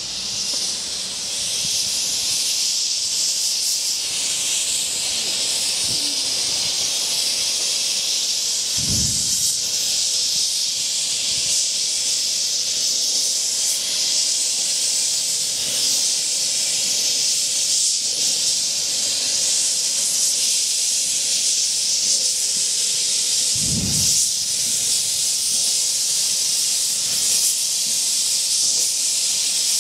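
A 15-inch-gauge steam locomotive blowing off steam: a loud, continuous hiss that swells up in the first second and holds steady. Two brief low thuds stand out, about fifteen seconds apart.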